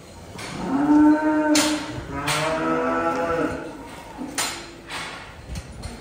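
Dairy cows mooing: two long, loud moos in the first half, with a few sharp knocks in between and just after.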